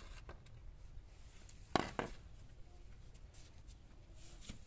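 Quiet handling noises with a sharp knock a little under two seconds in, a smaller knock just after it, and a few faint ticks.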